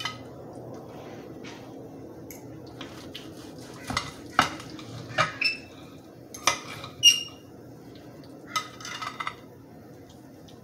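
Steel knife and fork cutting a cooked ribeye steak, scraping and clinking against a plate. A run of sharp clinks, some ringing briefly, comes in the middle, the loudest about seven seconds in, with a few softer taps later.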